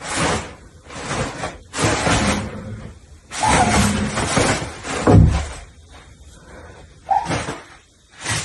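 Toilet paper rustling and crinkling as a kitten pounces and tumbles in loose streamers of it, in repeated bursts of half a second to a second. The loudest is a dull bump about five seconds in.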